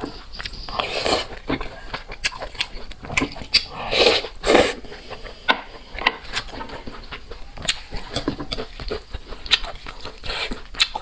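Close-miked eating of noodles: wet chewing with many sharp mouth clicks, and a few longer, louder noisy stretches about one second in and around four seconds in.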